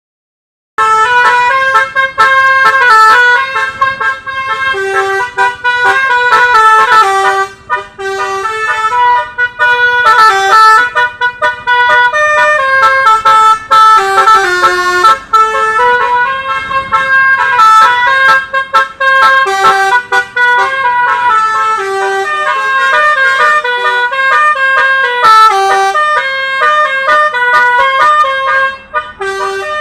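Basuri, a multi-tone musical bus air horn, played as a tune: loud horn notes step up and down in quick succession, often two or three pitches sounding together. It starts almost a second in.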